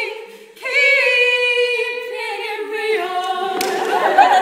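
A female trio singing a cappella in close barbershop harmony. A held chord starts about half a second in, and the voices move to a new chord near three seconds in.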